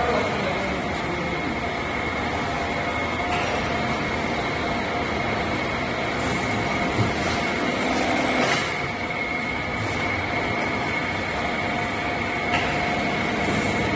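Steady running noise from a granule weighing-and-bagging machine line and its belt conveyor, with a constant high whine and a few light knocks.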